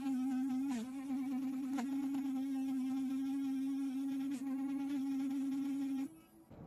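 Electric vibrating cleaning brush buzzing steadily against a phone's top edge. Its pitch dips briefly twice when it is pressed harder, and the buzz cuts off near the end.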